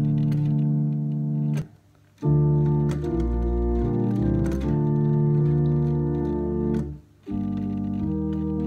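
Two-manual electronic home organ playing slow held chords over a low bass line, in B-flat. The sound stops dead twice between phrases, about two seconds in and again about seven seconds in.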